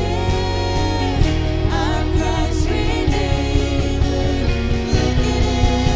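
Live worship band playing a contemporary Christian song, with women singing and a full band including guitar, drums and saxophone.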